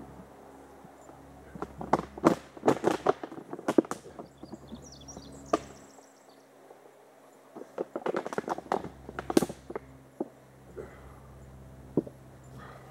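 Two bouts of sharp knocking and rustling, each a couple of seconds long, about two seconds in and again about eight seconds in, with a single knock near the end: someone moving about and handling things on the forest floor.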